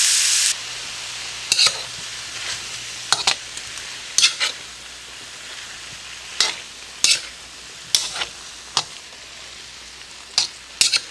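Frozen mixed vegetables sizzling in a cast iron wok while a metal spatula turns them, clacking and scraping against the pan about a dozen times at irregular intervals. The sizzle is loud for the first half second, then drops abruptly to a steady low hiss.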